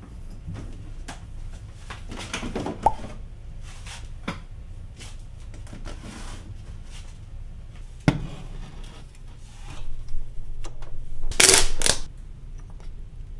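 Kitchen handling sounds: scattered clicks and knocks as a saucepan, the fridge and containers are handled, with one sharp knock about two-thirds of the way in. Near the end, two loud short scrapes as a plastic lid is pulled off a tub.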